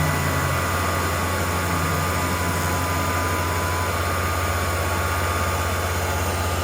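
CNC router running steadily while milling a block of wood: a constant low hum with a high whine over a hiss, one whine dropping out a little past halfway.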